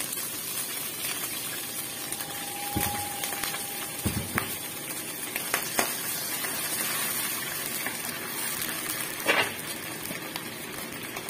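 Water poured into a hot wok of minced garlic frying in oil, hissing and bubbling as it heats. A wooden spatula knocks and scrapes against the pan a few times while stirring.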